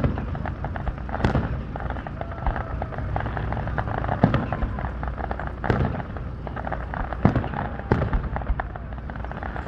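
Aerial fireworks display bursting: a string of sharp booms, about six in under ten seconds and irregularly spaced, over a steady background din.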